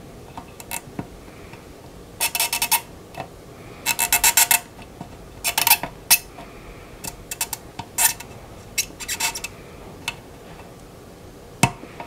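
Soldering iron tip scraping and tapping at the solder joints of a capacitor on an ECM circuit board while desoldering it, in about five short bursts of rapid metallic clicking.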